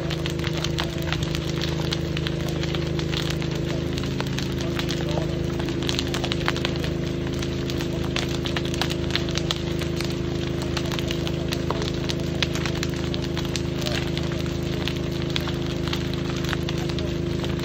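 A burning building's fire crackling and popping with many sharp irregular snaps, over the steady hum of a running engine.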